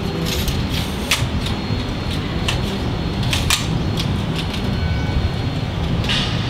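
Manfrotto befree travel tripod being collapsed and folded: scattered sharp clicks and clacks of its leg sections sliding shut and its catches being handled, over a steady low background rumble.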